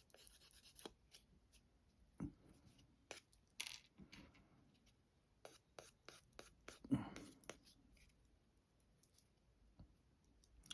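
Faint scratching of small plastic model-kit parts being sanded to clean up the sprue marks, with scattered light clicks and taps of the parts being handled.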